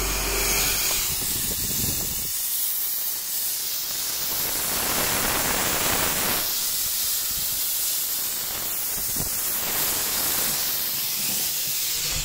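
LED Lord Fog 6 fog machine jetting fog out of its six output nozzles: a steady, loud hiss, with a low hum under it that stops about two seconds in.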